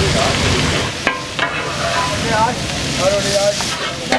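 Fish katakat frying on a large flat griddle: a steady sizzle, with metal spatulas clanking against the griddle about a second in, again shortly after, and near the end.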